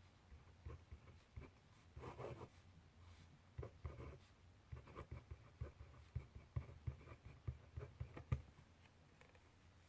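Faint handwriting on paper: quick, short scratching strokes and light taps, thickest in the middle and stopping about a second and a half before the end.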